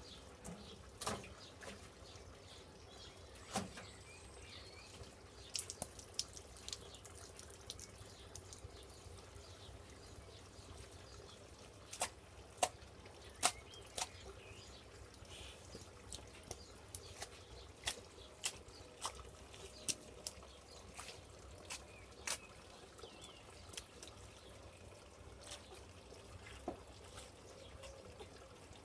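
Water dripping and lightly splashing in a rain-wet garden: sharp, irregular ticks, some close together, over a faint steady background.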